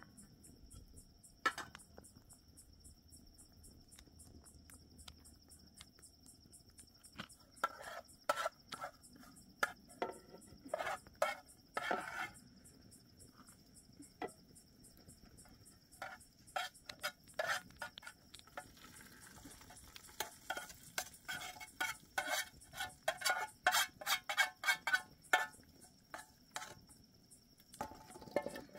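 Metal spoon scraping and clinking against a metal frying pan and cooking pot in quick runs of strokes, as a fried mixture is scraped out of the pan into the pot. Crickets trill steadily in the background.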